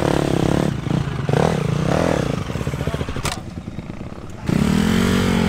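Dirt bike engines on a motocross track, their revs rising and falling as a bike rides past, with a sharp click about three seconds in. About four and a half seconds in, the sound jumps louder to a steadier engine note.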